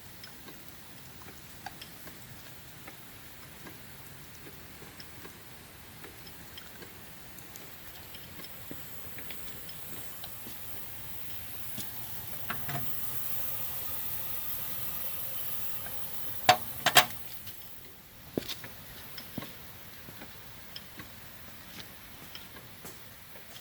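Steam plant running: a light regular ticking, with a hiss of steam that swells for several seconds before cutting off, and two sharp metallic clacks just before the hiss stops.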